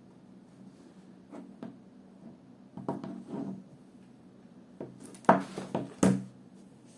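Small hard clicks and taps from handling a smartphone SIM card tray and SIM cards, with a few scattered light knocks and two sharper ones about five and six seconds in, over a faint steady hum.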